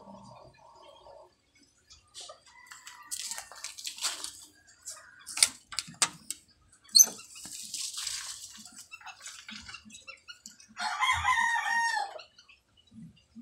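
Silver Sebright bantam rooster crowing once near the end, a short, high crow that falls in pitch at its close. Before it come scattered sharp clicks and rustles.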